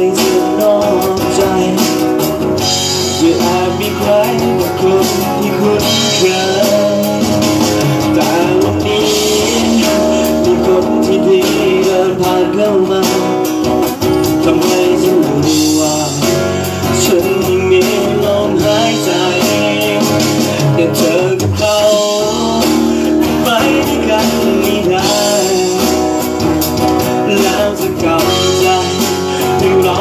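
A small live band playing a song: guitar and keyboard accompanying a singer at the microphone.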